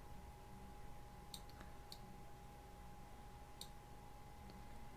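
A few faint, sharp computer-mouse clicks, scattered and irregular, over a faint steady electrical hum.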